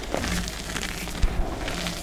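Handfuls of dyed reformed gym chalk crunching and crumbling as hands squeeze it over a heap of powder, with many small crackles and one sharper knock a little past halfway.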